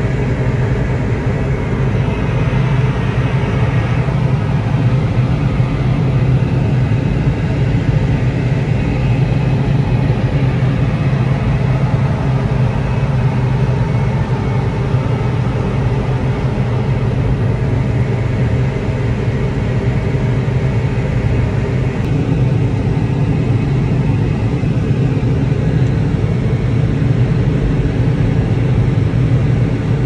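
John Deere CP690 cotton picker running steadily under load while picking, heard from inside the cab: a constant engine and machinery hum.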